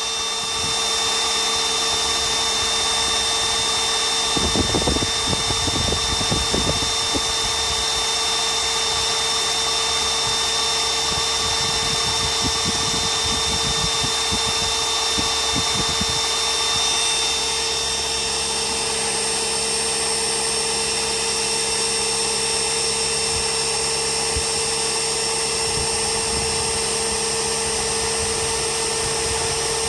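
Ridgid drill running steadily at full speed, driving a drill-powered transfer pump that is pumping water out of a bucket, a constant whine. There is some irregular low rattling about 4 to 7 seconds in and again around 12 to 16 seconds.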